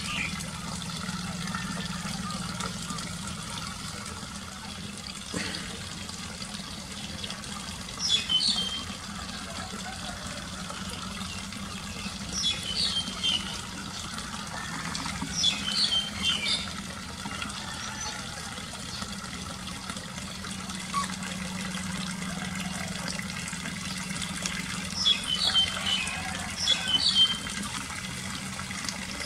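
Young puppies squeaking in short, high, falling bursts, in four separate clusters, over a steady background hiss and a low hum.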